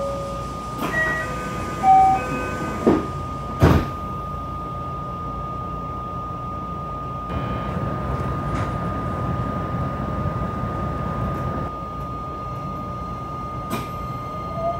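A few short electronic chime tones, then two sharp thumps as the doors of a JR West 227 series electric train shut. Near the end the train's Toyo IGBT-VVVF inverter starts a rising whine as it begins to pull away.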